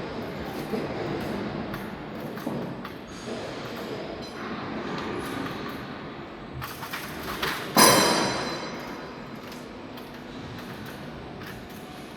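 Double-blade stone cutting machine with 3600 mm saw blades running and cutting granite: a steady grinding rumble with scattered knocks. A single loud clang that rings on briefly comes about eight seconds in.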